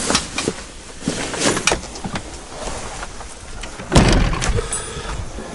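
Knocks, clicks and rustling as gear is handled in the cab of an off-road vehicle with its door open, with one loud thump about four seconds in.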